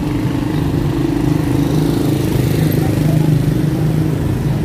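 A motor vehicle's engine running steadily at low revs, a continuous low hum, amid city street traffic.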